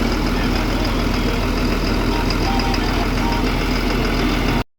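Wheel loader's diesel engine idling steadily, then cutting off suddenly near the end.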